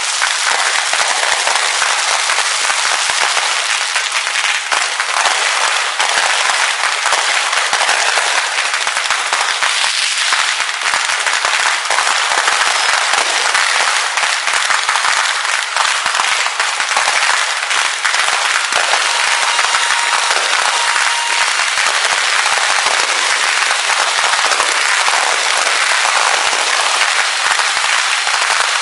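Fireworks going off in a dense, unbroken barrage of crackles and pops.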